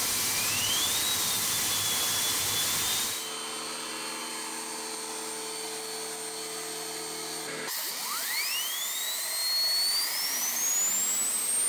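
Homemade steam turbine test runs. First a high whine rises and then holds over a steam hiss. After a cut comes a steady hum of several tones, and near the end a whine climbs steadily in pitch as the turbine speeds up.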